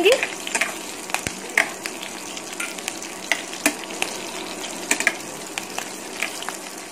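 Green chillies and cumin seeds sizzling in hot ghee in a stainless steel kadhai, stirred with a steel spoon that scrapes and clicks against the pan. A steady hiss runs throughout, with frequent sharp ticks from the spoon and spattering.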